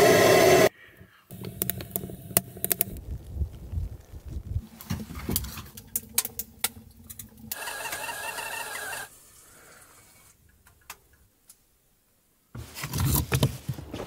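A butane torch lighter hisses briefly as it lights the wood stove, followed by a few seconds of scattered crackles and clicks. About halfway through, a stovetop kettle whistles for a second or two with a steady high tone over hiss. Near the end, after a quiet stretch, a louder noise starts.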